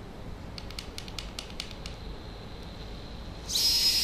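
A quick run of about half a dozen light clicks, then near the end a loud, steady, high whine starts: the DJI Inspire 2's transform motor running as the drone is taken out of travel mode.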